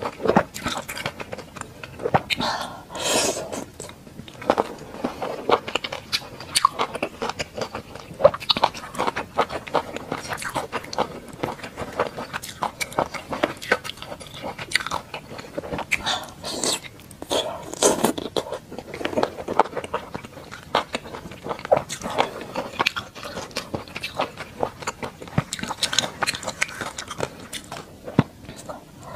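Close-miked biting and chewing of skewered oysters in garlic-chili sauce, a dense run of short clicks and smacks from the mouth.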